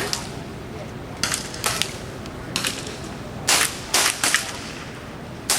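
Air rifles firing: about eight short, sharp reports at uneven intervals, some in quick pairs, over a steady background hiss.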